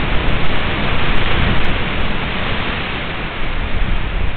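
Tropical-storm rain and wind, a steady rushing noise buffeting an outdoor webcam's microphone.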